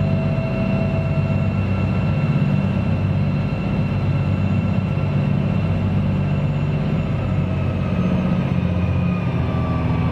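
A passenger boat's engines drone steadily as heard on board, a loud low hum with a thin whine above it that sags slightly in pitch near the end.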